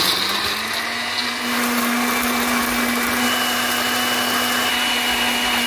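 Tefal Maxiblend countertop blender running steadily, grinding fried ingredients into a thick paste. Its motor pitch climbs slightly in the first second, and the sound grows a little louder about a second and a half in.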